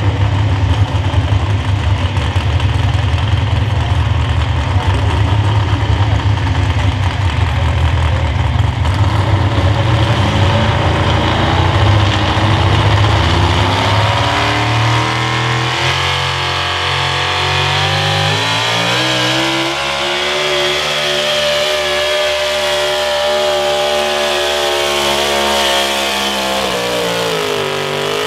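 Super Stock 4x4 pulling truck's engine: a loud, heavy rumble at first. About halfway through it revs up steeply and holds at high revs while the truck hauls the pulling sled, then the revs drop just before the end.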